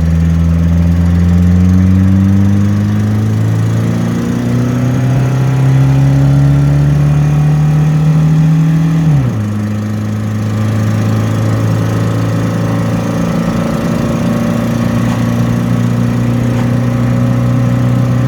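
Car engine pulling hard uphill, its pitch rising as it accelerates. About nine seconds in, the pitch drops sharply as it shifts up a gear, and the engine then runs steadily.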